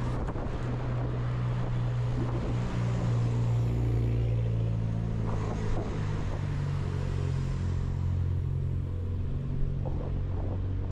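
An engine running with a steady low hum that shifts slightly in pitch over the seconds.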